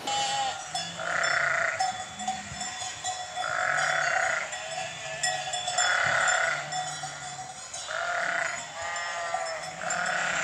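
A large flock of sheep bleating, one loud call after another every couple of seconds over a steady chorus from the rest of the flock.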